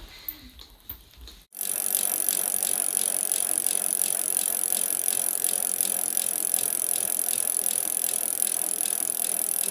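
Socket ratchet wrench clicking rapidly and steadily as bolts on a ceiling fan mounting bracket are cinched tight. It starts abruptly about a second and a half in, after a moment of quiet room sound.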